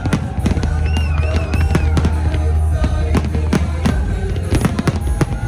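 Fireworks going off in quick succession, many sharp bangs and crackles, over music with a heavy, steady bass.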